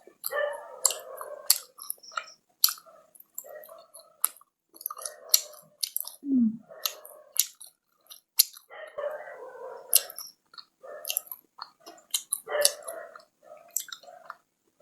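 Close-up chewing of chocolate, with wet mouth noises and frequent sharp lip-smacking clicks at an irregular pace.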